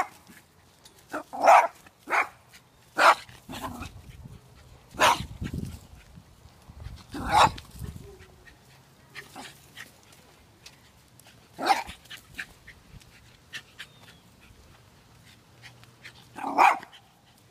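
Dogs behind a fence giving short, loud barks at a passing dog, typical fence aggression: a quick run of barks in the first few seconds, then single barks several seconds apart.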